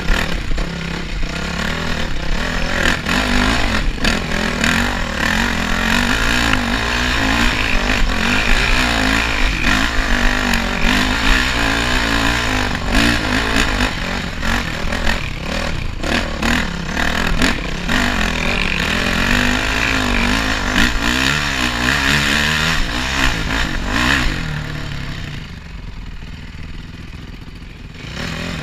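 Off-road motorcycle engine being ridden over a rough, muddy trail, its revs rising and falling with the throttle, with the bike rattling over bumps. About three-quarters of the way through the throttle is eased off and the engine runs quieter for a few seconds before picking up again.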